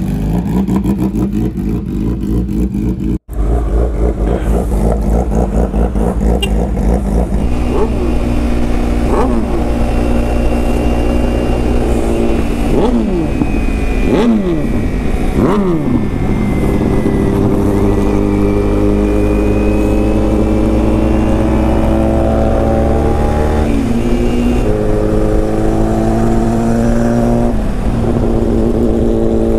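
Kawasaki sport motorcycle engines. After a cut about three seconds in, the bike carrying the microphone is ridden down the road, its revs swinging up and down several times before settling to a steady cruise about halfway through.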